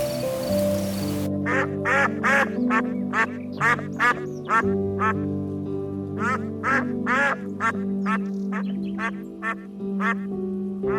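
A duck quacking over and over, about two short quacks a second in uneven runs, starting about a second in, with soft piano-and-guitar background music underneath.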